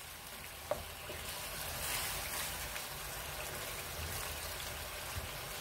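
Diced potatoes simmering in a little spiced water in a kadai while a wooden spatula stirs through them, with a light knock of the spatula about a second in.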